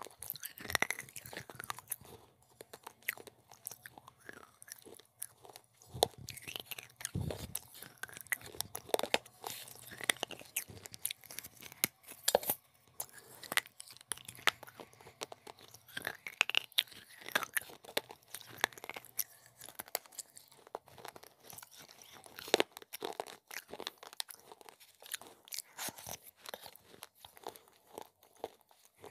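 Close-miked crunching and chewing of pieces of baked clay pot: irregular sharp cracks as the pieces are bitten, with chewing between them.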